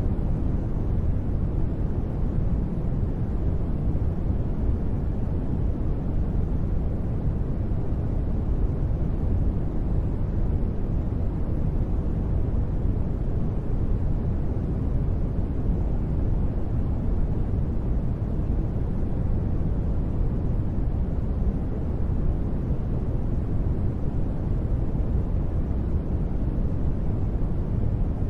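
Continuous sleep noise, a steady, deep rushing hiss weighted toward the low end, with no changes or sudden sounds.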